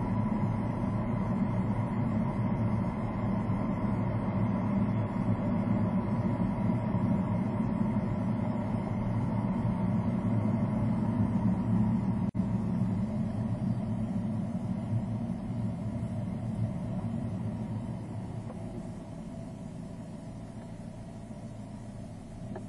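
A car's engine and tyre noise heard from inside the cabin, a steady low rumble. It drops out for an instant about twelve seconds in, then grows quieter over the last few seconds as the car slows to a stop.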